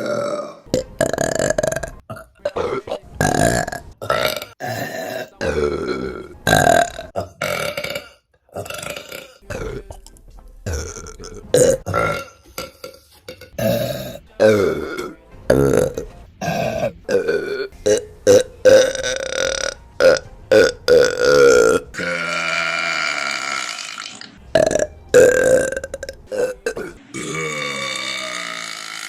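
Women burping, one short burp after another in quick succession, with a few longer, drawn-out burps in the second half.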